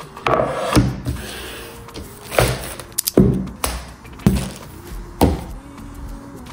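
Grocery items in plastic packaging set down one after another on a hard countertop: about six thunks and taps, with plastic packaging crinkling between them.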